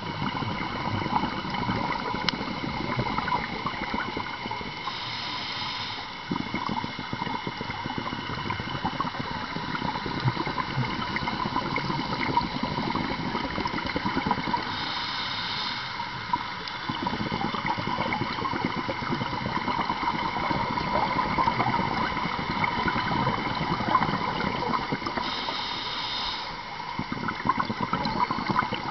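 Underwater breathing through a scuba regulator: three brief inhalation hisses about ten seconds apart, each followed by a long, crackling rush of exhaled bubbles, over a steady hum.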